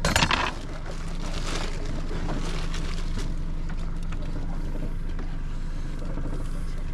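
Steady low hum of the boat's motor running, with a short loud clatter at the very start and a few light knocks as the plastic stone crab trap is handled on deck.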